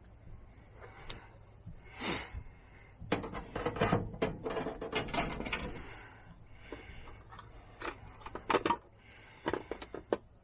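Wire racks clinking and rattling against an aluminium sheet pan while salmon fillets are shifted on them: a dense run of clatter in the middle, then a few sharp metallic clinks near the end.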